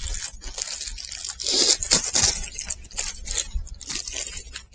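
Plastic bread wrapper being crinkled and torn open, an irregular crackling and rustling.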